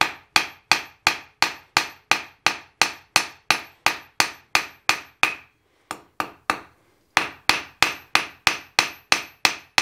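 Hand hammer striking a hot steel bar on an anvil in a steady rhythm of about three blows a second, knocking down the bar's corners; each blow rings briefly. Past the middle the blows pause for about a second and a half, with a couple of lighter taps, then resume.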